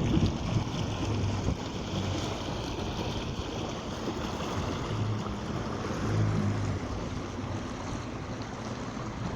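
Water rushing past the hull of a small sailboat under way, with light wind noise on the microphone.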